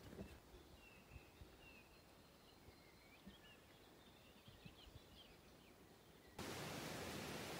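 Faint outdoor ambience with small birds chirping and a few soft thumps at the start. About six seconds in, it switches abruptly to a steady rushing noise.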